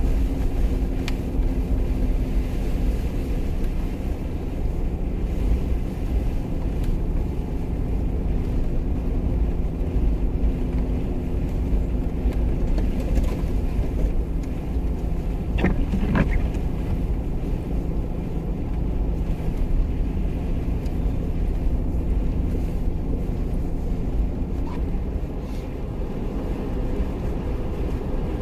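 A Jeep's engine running steadily as it drives, with a continuous low rumble. There is a brief squeak about halfway through.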